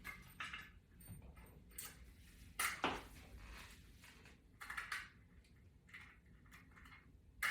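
Faint clicking and clinking of small metal hardware: butterfly toggle wings being fitted onto the ends of mounting screws. Scattered light clicks, with a louder clatter about three seconds in and another around five seconds.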